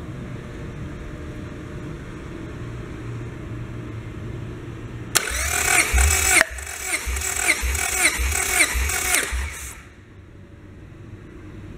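Honda B18C Type R four-cylinder engine idling, then revved in a run of about six quick throttle blips, each rising and falling in pitch, starting about five seconds in; it drops back to a quieter idle near the end.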